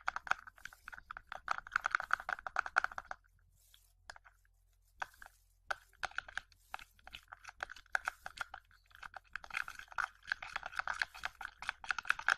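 A utensil stirring thick shampoo in a plastic pot: a rapid run of wet clicking and scraping strokes that stops for about two seconds a few seconds in, then goes on again.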